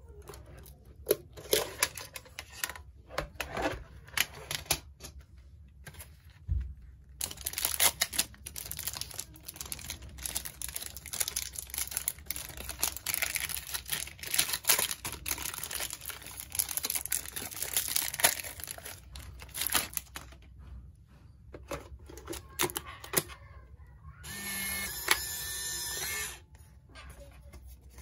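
Loading a Polaroid OneStep+ instant camera: handling clicks at first, then a foil film-pack wrapper torn open and crinkling for several seconds. About 24 seconds in, the camera's motor whirs for about two seconds as it ejects the dark slide from the new pack of 600 film.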